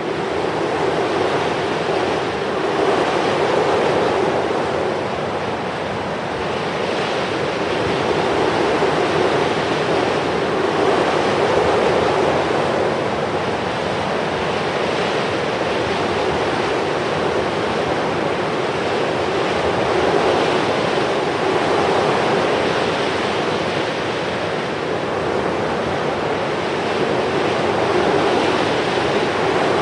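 Steady rushing noise, like surf or wind, that swells and eases gently every several seconds.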